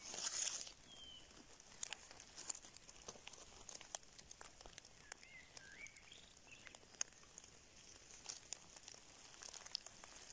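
Dry pine needles and leaf litter rustle briefly at the start as morel mushrooms are cut and picked up. Scattered faint crackles and ticks follow, and a few faint bird chirps come in the middle.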